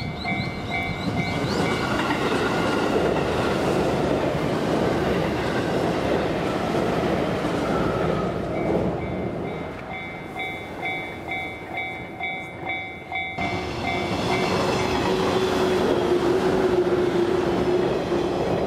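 Railway level-crossing warning bell ringing in a fast repeating ding while a train rumbles past on the tracks. The bell stops and starts again about nine seconds in, cuts off suddenly about four seconds later, and a train carries on rumbling with a steady whine to the end.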